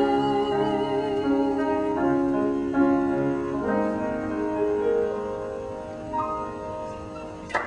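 Piano playing the closing chords of a song, slowing and fading away. Applause breaks out at the very end.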